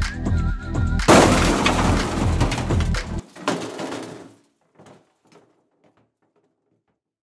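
Background electronic music with a whistled melody, cut across about a second in by a loud crash that clatters on; the music stops about three seconds in, and a few faint clattering knocks die away into silence.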